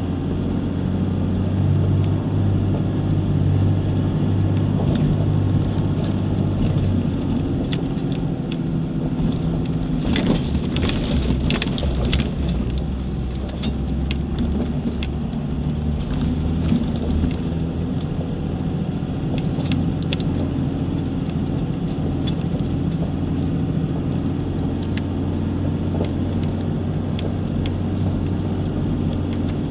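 A 4x4's engine pulling steadily at low speed up a dirt trail, heard from inside the cab, its note shifting about seven seconds in. Sharp knocks and rattles come over rough ground around ten to twelve seconds in, with a few more scattered after that.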